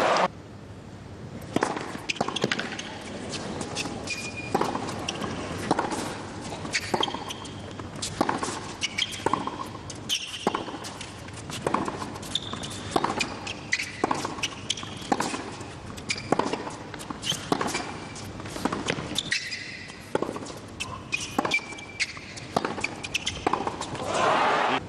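Tennis rally on a hard court: sharp racket strikes on the ball and ball bounces, with short shoe squeaks as the players move. Crowd applause swells near the end as the point is won.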